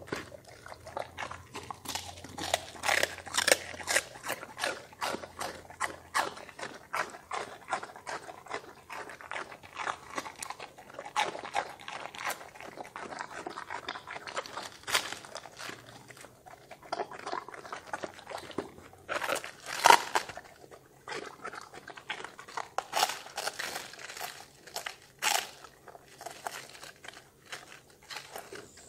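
A Doberman crunching and chewing raw cabbage, with irregular crisp crunches all through, the loudest about twenty seconds in.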